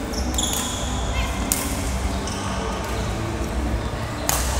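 Badminton rally: two sharp racket strikes on the shuttlecock about three seconds apart, with short high shoe squeaks on the court floor between them. A steady low hum runs underneath.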